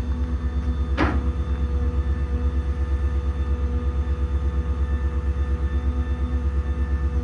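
The truck's 7.3 V8 gas engine runs steadily, driving the crane's hydraulics as the boom is operated: a low, fast-pulsing drone with a steady hum on top. There is a short sharp knock about a second in.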